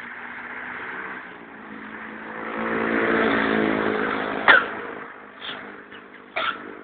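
A motor running with a steady hum that swells in the middle and eases off again, with three sharp squeaks or clicks near the end.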